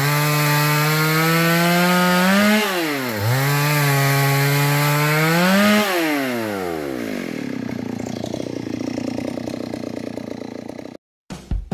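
Hand saw cutting wood in long back-and-forth strokes. The blade gives a pitched tone that dips sharply at each turnaround, about every three seconds, and rises again as the stroke gathers speed. After about seven seconds it turns into a rougher, fast rasping and cuts off near the end.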